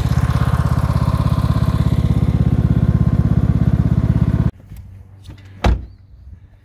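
Cub Cadet riding lawn mower engine running steadily, then cutting off suddenly about four and a half seconds in, followed by a single thud.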